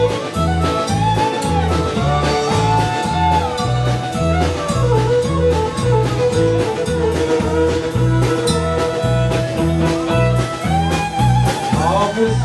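Live country-bluegrass band playing an instrumental passage: banjo and acoustic guitar over drums, with a bass alternating between two notes about twice a second and a bowed fiddle holding long notes.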